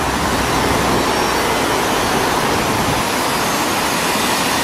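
Steady road-traffic noise from passing cars and buses, with a low rumble that eases off about three seconds in.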